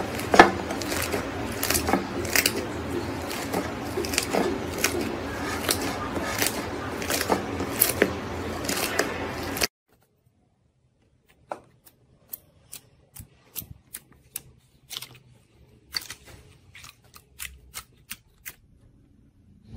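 Slime being kneaded and pressed by hand in a bowl, a dense crackle of many small clicks and pops. After a sudden cut about ten seconds in, jelly slime is pressed against a wire grid, giving sparse single wet pops and clicks with stillness between them.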